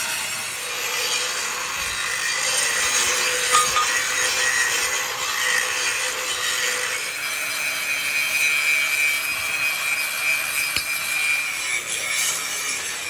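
Handheld electric angle grinder running its disc across the face of a flat steel bar: a steady scraping hiss over the motor's whine, which changes pitch about halfway through.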